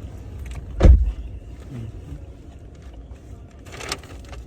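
A sharp thump about a second in, over a steady low rumble inside a car, with a short rustle near the end.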